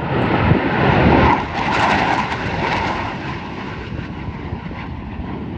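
Blue Angels F/A-18 Super Hornet jet flying past: the roar swells to its loudest within the first second and a half, then gradually fades away.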